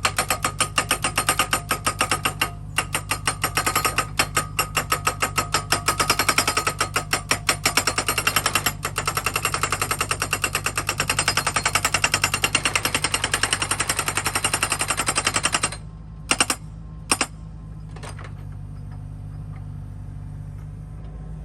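Rapid mechanical hammering, several blows a second, over a steady engine drone. It stops about sixteen seconds in, two single knocks follow, and then only the engine drone goes on.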